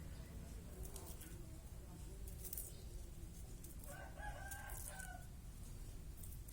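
A rooster crows once, just over a second long, about four seconds in, over faint clicks and a low steady hum.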